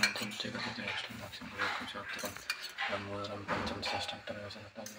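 Small metal puja vessels, a silver cup and spoon, clinking against a silver plate, with a sharp clink right at the start and lighter clinks after it. A voice talks in the background.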